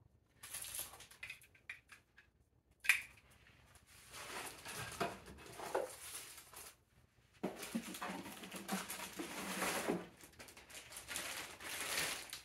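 Unboxing handling noise: cardboard and packaging rustling with a sharp knock about three seconds in, then a long stretch of plastic wrap crinkling as the wrapped metal antenna elements are lifted out of the box.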